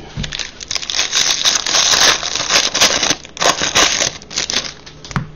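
Baseball card packs and cards being handled: wrappers crinkling and cards rustling and clicking against each other in a quick, busy run that eases off near the end.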